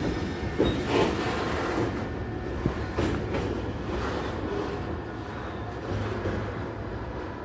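Hopper wagons of an engineer's train rolling away over the track, the wheels knocking a few times in the first three seconds over a steady rumble that slowly fades as the train recedes.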